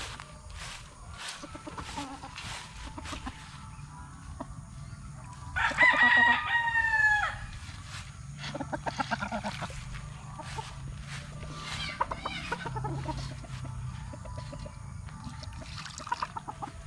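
A rooster crows loudly once about six seconds in, a long call that drops in pitch at its end. Fainter crowing and clucking from other chickens follow, with short clicks throughout.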